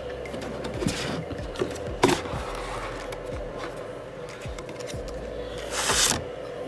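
Box packaging being handled and opened: scraping and rustling with scattered clicks, a sharp click about two seconds in and a short rustle near the end. Under it runs the steady white-noise hiss of a space heater.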